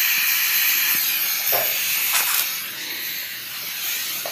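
Oxy-fuel gas welding torch flame hissing steadily while it heats a magnesium sheet and filler rod, growing quieter in the second half.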